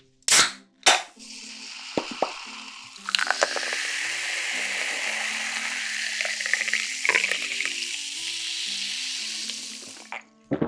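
A can of Coca-Cola cracked open with two sharp snaps of the tab and a short hiss, then poured into a glass mug: the cola splashes and fizzes loudly for about seven seconds and stops shortly before the end.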